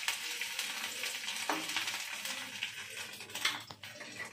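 Chopped garlic sizzling in hot oil in a nonstick kadai as a spatula stirs it, with a couple of sharp scrapes of the spatula against the pan; the sizzle drops away near the end as the stirring stops.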